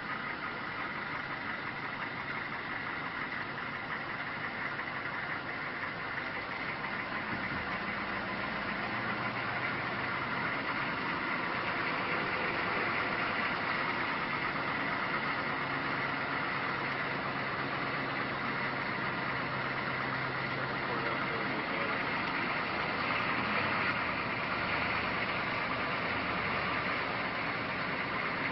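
Engine running steadily, its low hum shifting in pitch a couple of times.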